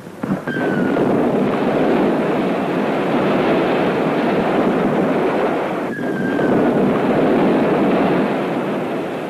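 Depth-charge blasts at sea: a loud, dense rushing roar that swells about half a second in and again about six seconds in, each swell with a short, faint falling whistle.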